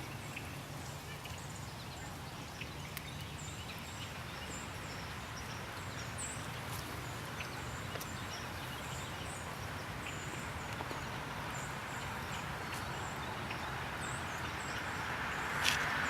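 Steady outdoor background noise: a low hum, short high chirps and a few faint ticks, with no clear loud shots or pops.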